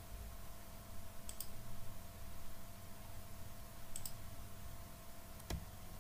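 A few faint computer mouse clicks, about three spread across the few seconds, as options are picked in drawing software, over a faint steady hum.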